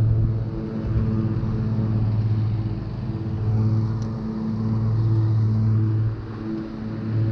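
A motor or engine running steadily: a low, pitched hum that swells and eases every second or two.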